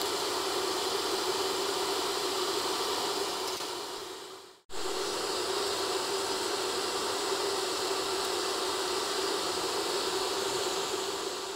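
Vegetable fritters deep-frying in hot oil in a pan: a steady sizzle. It cuts off briefly about four and a half seconds in, resumes, and fades toward the end.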